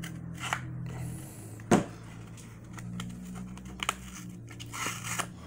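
A blade cutting and fingers tearing at the tough paper wrapper of a sealed football card set, with crinkling and a few sharp clicks, the loudest about one and three-quarter seconds in, over a steady low hum.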